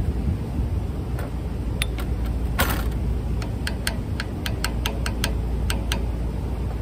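Light taps of a claw hammer on a metal double-groove V-belt pulley, driving it down onto a new motor's shaft. A few scattered taps come first, then a quick run of about ten in the middle, over a steady low rumble.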